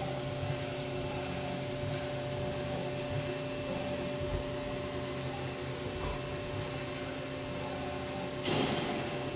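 Haas VF-1 CNC vertical machining center powered up and running: a steady mechanical hum with several steady tones over a whirring noise. A short rush of hissing noise comes about eight and a half seconds in.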